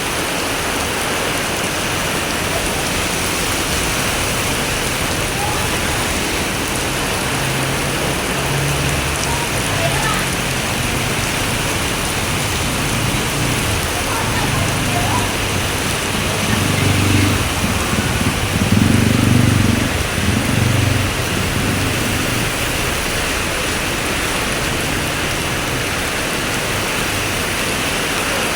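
Heavy rain pouring down steadily, a dense even hiss. A low rumble swells in and out around the middle, loudest a little past halfway.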